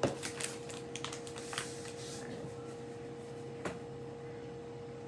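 Quiet indoor room tone with a steady hum, broken by a sharp click at the very start and a few fainter clicks or taps, the clearest about three and a half seconds in.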